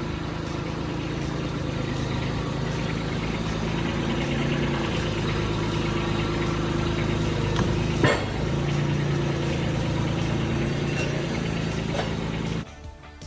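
An engine running steadily, with one sharp click about eight seconds in; the engine sound stops abruptly near the end.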